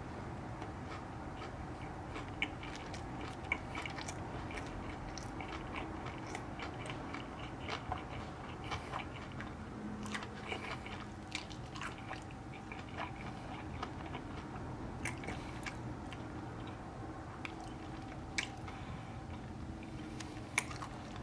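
A person biting into and chewing a mouthful of a crispy panko-breaded fish sandwich, with many small clicks of mouth sounds over a steady low hum.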